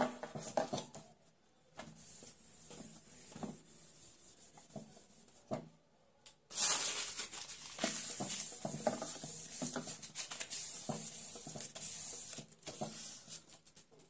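A bare hand rubbing across a whiteboard in repeated strokes, wiping marker off it; the rubbing grows louder and quicker from about six and a half seconds in.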